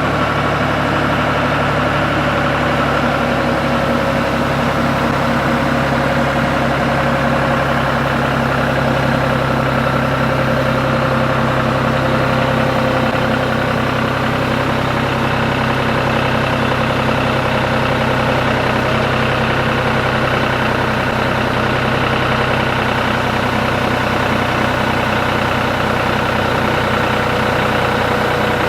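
John Deere tractor engine running at a steady, even speed, a loud constant engine note with no revving.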